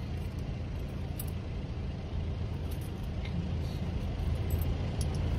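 Steady low rumble of a car running, heard from inside its cabin, with a few faint ticks.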